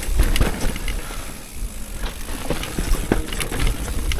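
Transition Sentinel V3 mountain bike riding down a dirt trail: steady tyre and chassis rumble, broken by scattered sharp knocks and rattles as it rolls over small roots.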